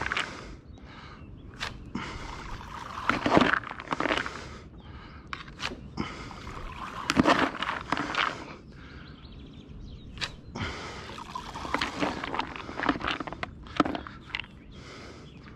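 A long-handled bait scoop scraping through a bucket of corn, the kernels rattling and rustling in irregular bursts with scattered clicks.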